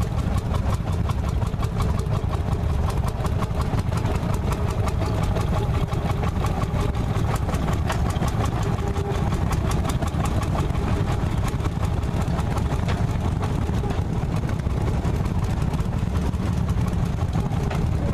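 Landini Bufalo tractor's single-cylinder two-stroke hot-bulb engine running steadily, its firing strokes coming as even, separate beats.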